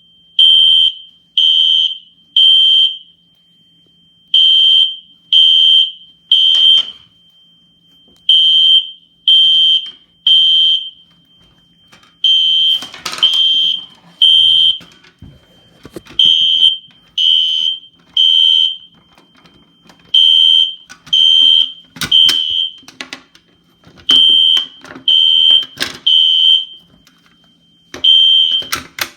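System Sensor SpectrAlert Classic P24110 fire alarm horn sounding in the temporal-3 evacuation pattern: three loud high-pitched blasts, a short pause, then three more, over and over. A few clicks and knocks sound between and over the blasts.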